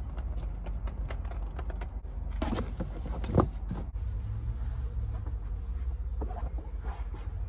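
Handling noises from cleaning out a car interior: scattered clicks and rustles, with one sharp knock about three and a half seconds in, over a low steady rumble.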